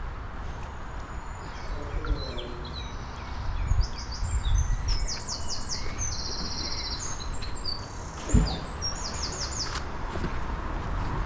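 A songbird singing a fast, varied song of high trills and rapid repeated notes, over a steady low rumble, with a single loud thump about eight seconds in.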